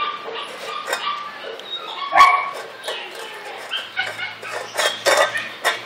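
Rottweiler puppies at a stainless steel food bowl: the bowl and kibble clink with eating noises, among short dog barks.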